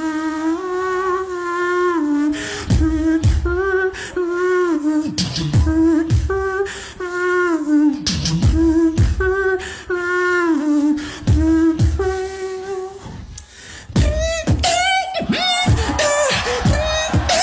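Beatboxing into a microphone: a hummed, sung melody line held mostly on one note with bends, over deep kick sounds that drop in pitch. About 14 seconds in it changes to denser, faster percussive sounds.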